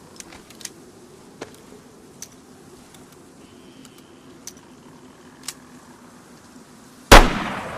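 A few faint, scattered clicks, then a single loud derringer pistol shot about seven seconds in, followed by a long echoing tail that slowly dies away.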